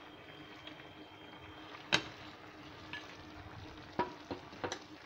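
Sauce simmering in a non-stick frying pan with a faint steady bubbling, while deep-fried egg pieces are tipped in. There is a sharp knock about two seconds in, the loudest sound, and several smaller knocks near the end.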